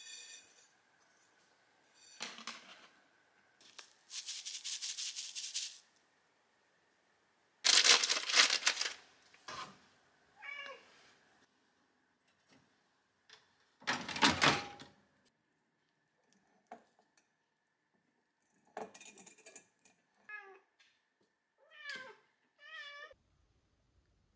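A domestic cat meowing, one call about ten seconds in and a quick run of four or five short meows near the end. Louder rustling and rubbing noises come in several bursts before them.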